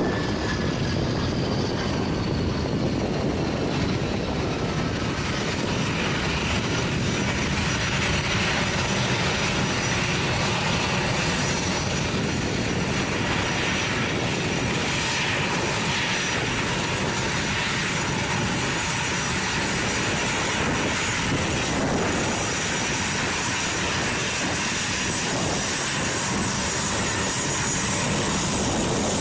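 A-10 Thunderbolt II's twin turbofan engines running as it taxis, a steady jet engine noise with a thin high whine and some faint tones falling in pitch near the start.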